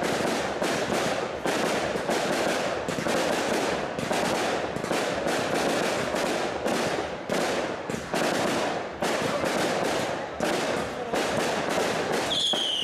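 Ground fireworks firing: fountains hissing with a dense crackle, and sharp bangs going off irregularly a few times a second. A high falling whistle starts near the end.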